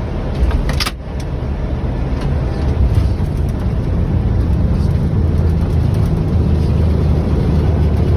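Airbus airliner touching down, heard from the cockpit: a short sharp thump about a second in, then a steady low rumble that builds over the next few seconds as the aircraft rolls out on the runway.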